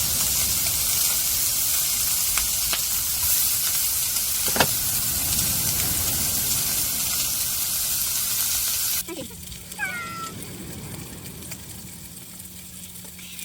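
Pork neck sizzling on a hot grill, with a few sharp fat pops. About two-thirds of the way in, the sizzle cuts off suddenly and a short gliding animal cry is heard over a low steady hum.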